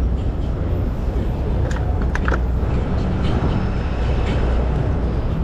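Busy city street: a steady low rumble of traffic, with a few short clicks about two seconds in.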